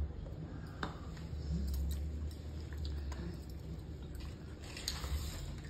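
Oiled hands rubbing and squishing on a baby's skin during a massage, with a few small clicks, over a steady low hum.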